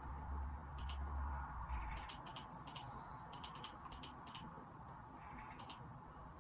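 Typing on a computer keyboard: irregular keystrokes, several in quick runs, over a steady hiss from a phone microphone. A low hum sounds for the first two seconds.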